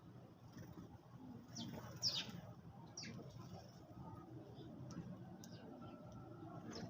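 Sparrows chirping: a handful of short, sharp chirps, each falling quickly in pitch, scattered irregularly. The loudest come about two seconds in.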